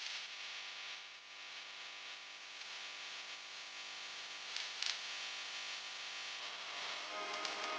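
Faint background music with sustained notes over a steady hiss, swelling near the end, with a few brief clicks.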